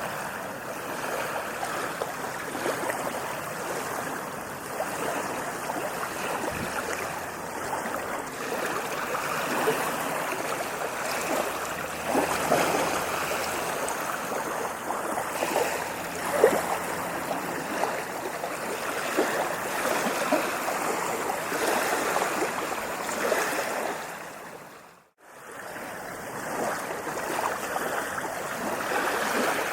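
Ocean waves washing up on a beach: a steady rushing surf with small swells. It fades out briefly about 25 seconds in and comes straight back.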